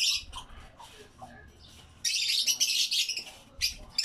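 Lovebirds chattering with shrill, high-pitched chirps. A loud burst of calling starts about halfway through, and another comes near the end.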